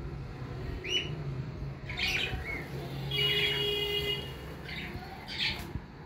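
Cockatiel calls: a short rising chirp about a second in, harsh squawks at about two seconds and again near the end, and a steady-pitched call lasting about a second in the middle.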